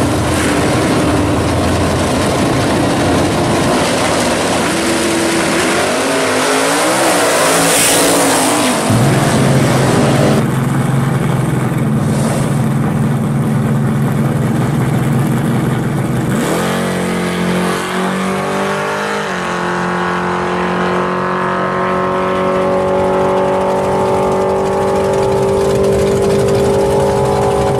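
Drag-racing cars running hard down the strip, the engine noise peaking about eight seconds in. Then an engine idles steadily. Later a car engine revs up and settles into a steady, higher running note.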